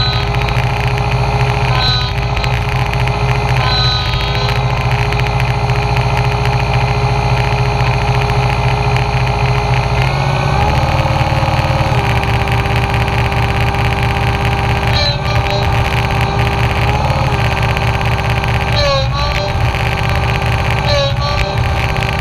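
Diesel engine of a Cat 226B skid steer loader running steadily, heard from underneath among the hydraulic hoses, with a brief change in its note about halfway through.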